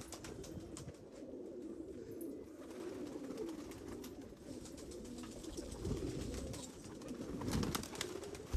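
A flock of domestic pigeons cooing continuously, with scattered short flurries of flapping wings, several close together near the end.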